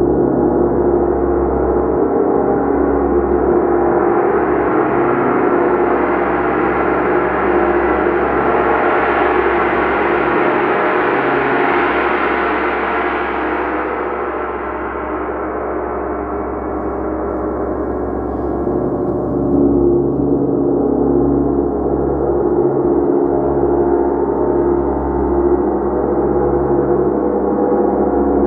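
Gong played continuously: a dense, sustained wash of many overlapping ringing tones over a low hum. Its bright upper shimmer swells to a peak about ten seconds in and then fades back, while the overall loudness stays fairly even.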